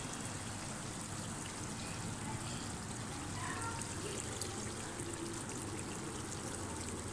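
Hot oil in a pan of chicken masala sizzling steadily after the flame is switched off.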